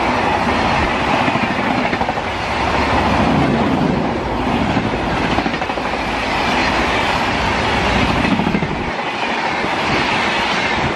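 Shatabdi Express passenger coaches passing at about 130 km/h: a steady rush of wheels on rail with a rhythmic clickety-clack. The deep rumble falls away near the end as the last coach goes by.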